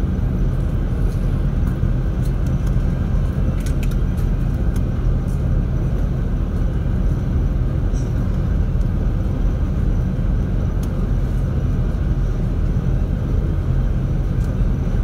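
Car ferry's diesel engines droning, heard aboard as a steady low rumble with an even hum.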